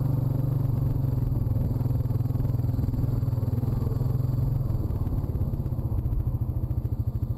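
Honda quad's single-cylinder four-stroke engine running steadily at low speed over rough ground, then easing off to a slower, pulsing chug about five seconds in.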